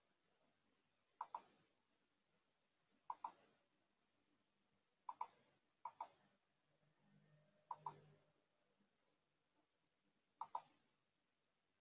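Faint computer mouse clicks, six in all, each a quick double click, spaced one to three seconds apart.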